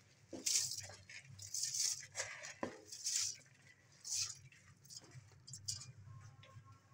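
Dry uncooked rice grains poured from a plastic bowl into a steel pot of chicken masala, pattering down in several short, hissy rushes, then spread over the pot by hand.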